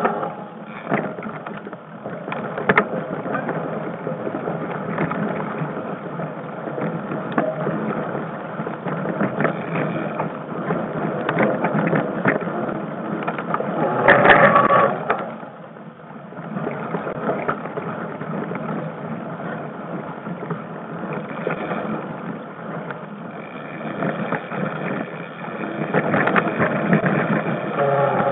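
Mountain bike ridden fast down a dirt forest trail, heard from on the bike: a steady rush of wind on the microphone over tyre noise and bike rattle, with sharp knocks over bumps and a louder stretch about halfway.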